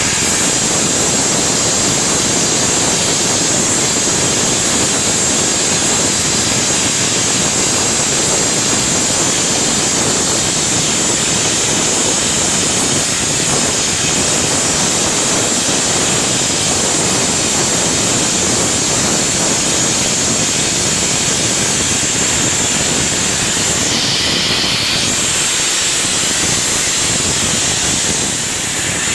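Gas burner on a double-chuck glass-blowing lathe, its flame hissing steadily as it heats a rotating glass tube.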